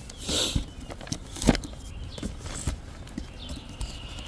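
Scattered knocks and rustling, with a short hiss near the start and one sharp knock about a second and a half in.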